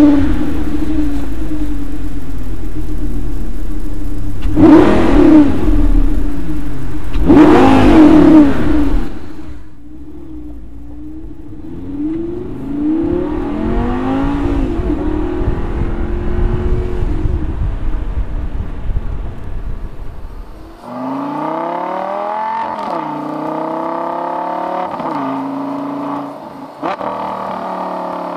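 Lamborghini Gallardo LP560-4's 5.2-litre V10 breathing through a Fabspeed Supersport aftermarket exhaust: it fires up and idles, is revved sharply twice, then pulls away under way. In the last few seconds the engine pitch climbs and drops repeatedly as the car accelerates through gear changes.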